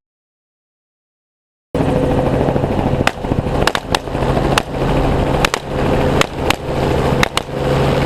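Silent for the first second and a half or so. Then a helicopter's steady rotor and engine drone, with a string of semi-automatic rifle shots at an irregular pace, more than a dozen, some in quick pairs.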